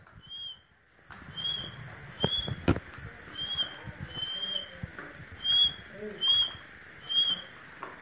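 Rose-ringed parakeet giving short, high chirps, about one a second, with a couple of sharp clicks in between.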